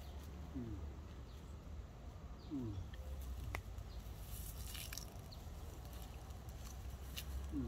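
Quiet rural outdoor ambience: a low steady rumble, with three short, low calls that fall in pitch from an animal and a few faint clicks.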